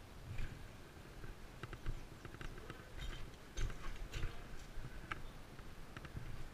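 Irregular footsteps with small knocks and clicks, like a player moving on foot with gear rattling.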